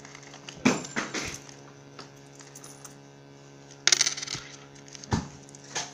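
A handful of sharp knocks and clinks as the clerk handles items on the post office counter; the loudest is a ringing metallic clink about four seconds in.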